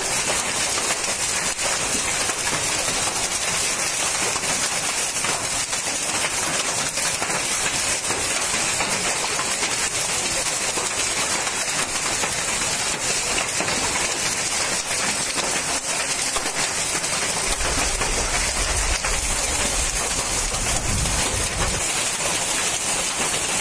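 Hailstorm with heavy rain: a steady hiss of rain with many small hailstone hits on bare ground. A low rumble on the microphone joins in about three-quarters of the way through.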